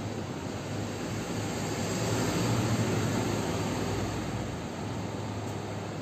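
Steady rushing noise of a passing engine over a low steady hum, swelling about two seconds in, peaking near three, then fading back.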